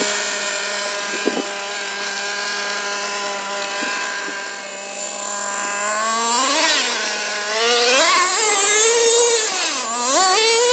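Traxxas 3.3 nitro RC truck's two-stroke glow engine idling steadily, then from about six seconds in revving up and down several times as the truck drives off.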